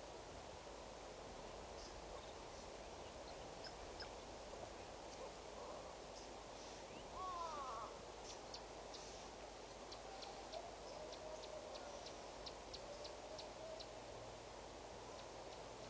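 Faint outdoor ambience with a short animal call of a couple of arching notes about seven seconds in. Softer wavering calls and scattered short high ticks follow later.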